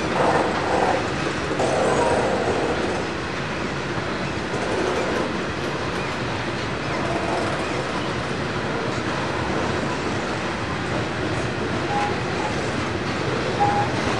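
Loaded coal hopper wagons rolling steadily past on a curve. Brief wheel squeals come in the first few seconds and twice more near the end.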